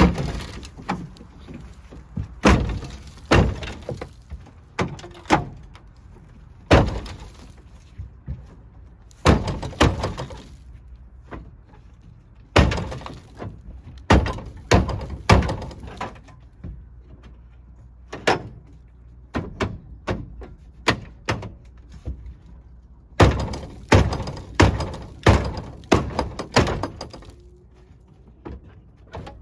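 Repeated heavy thuds of feet kicking and shoving against the inside of the locked, stuck steel tailgate of a 1957 Plymouth Sport Suburban station wagon, coming in irregular groups of blows.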